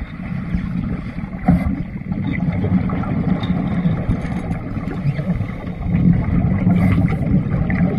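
Scuba divers' regulator breathing heard underwater: a low, muffled rumble with bursts of exhaled bubbles, louder for a while about six seconds in.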